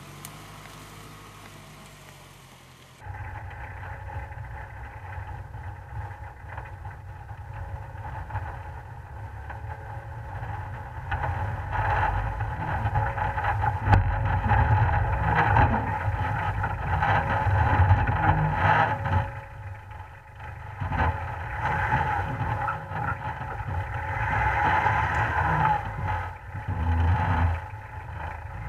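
Suzuki Vitara's engine pulling under load as it crawls over a rough forest track, with knocks and clatter from the bumps, swelling and easing with the throttle. It is quieter for about three seconds, then loud and muffled from a camera on the bonnet.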